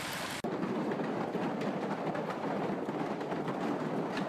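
Heavy hail pelting pavement and parked cars: a dense, continuous clatter of small impacts. About half a second in, it changes abruptly to a duller, deeper clatter.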